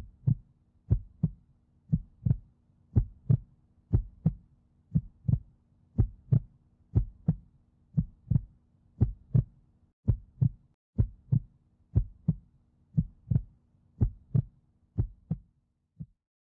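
Heartbeat sound effect: paired lub-dub thumps, about one pair a second, over a faint steady hum. It stops after a last single thump near the end.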